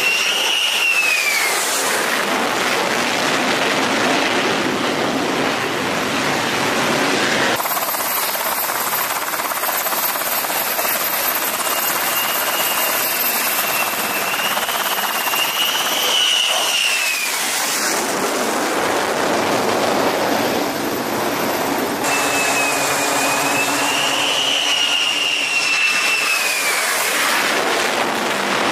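F-35C Lightning II jet on landing approach, its F135 turbofan running loud and steady. A high whine rises slightly and then falls in pitch as the jet comes in; this happens three times, near the start, at about 15 seconds in and at about 25 seconds in.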